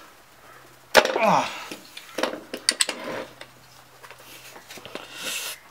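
Torx-head brake caliper slider bolt breaking loose under a wrench with one sharp crack about a second in, followed by a short falling vocal grunt. Scattered metallic clicks of the tool and caliper follow.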